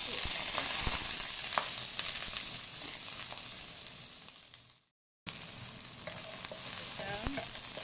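Sliced onion, garlic and ginger sizzling in hot oil in a non-stick wok, loud at first as they hit the oil and then fading. After a sudden cut to silence about five seconds in, a softer sizzle resumes as a wooden spatula stirs them, with a few knocks against the pan.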